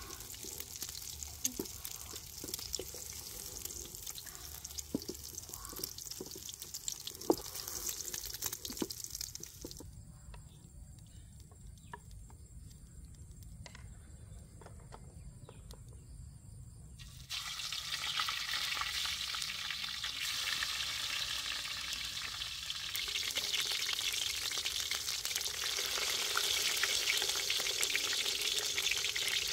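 Eggs frying in bell pepper rings in hot oil in a wok, a sizzle that starts suddenly about halfway through and grows louder toward the end. Before it come light knocks and clicks of handling.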